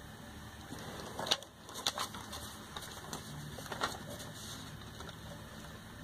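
A few soft clicks and taps of objects being handled and moved about while something is searched for, over faint room noise.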